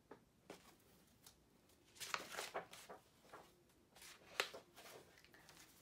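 Faint rustling and soft knocks of a hardcover picture book being handled and its pages turned, in a few short bursts, the busiest about two seconds in and again about four seconds in.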